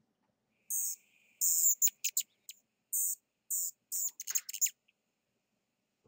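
Rufous hummingbird calling: short, very high squeaky chips repeated about every half second, with a quicker jumble of chips around the middle.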